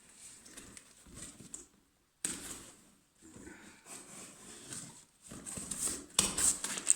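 Irregular rustling and knocking of a cardboard parcel and its packing being handled and opened, louder and sharper near the end.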